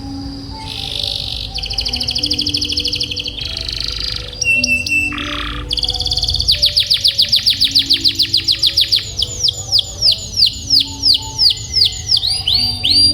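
Domestic canary singing a varied song: buzzy trills and a short rattle, then from about six seconds in a long roll of quick down-slurred notes, very fast at first and slowing toward the end.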